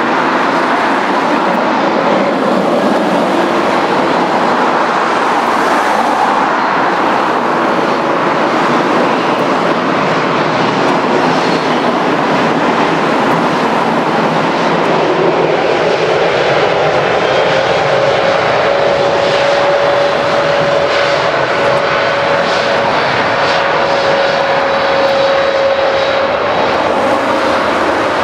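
Jet engines of a Boeing 787-8 Dreamliner on the runway, a loud steady rush. About halfway through a tone rises and then holds steady as the engines spool up to takeoff thrust for the takeoff roll.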